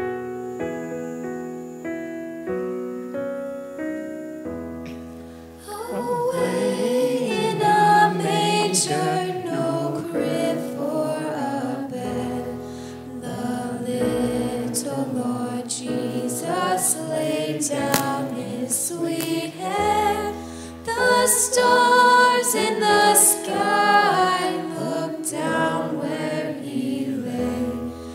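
Piano playing a short introduction, then voices singing a song with piano accompaniment from about five seconds in.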